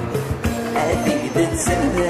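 Music with a melody over a bass line and a regular beat.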